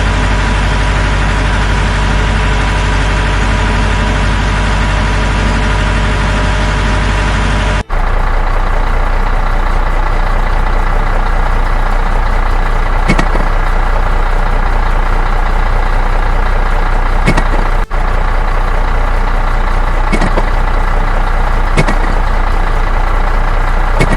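A heavy machine's engine running steadily under load, with a few sharp knocks. It drops out for a moment twice, at about 8 and 18 seconds in.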